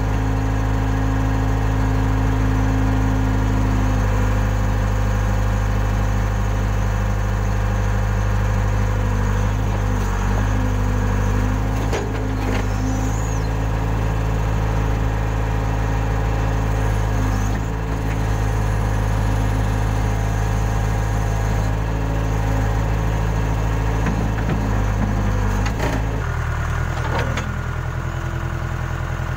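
Case 580K backhoe loader's diesel engine running steadily while it works, with a few sharp knocks along the way. Near the end the engine note drops and settles lower.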